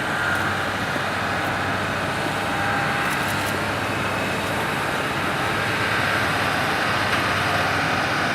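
Diamond DA40 Diamond Star light propeller aircraft's engine running steadily at low power, heard across the airport.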